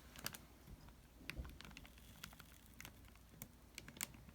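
Faint, scattered light clicks and taps of hands seating a CPU in a motherboard socket.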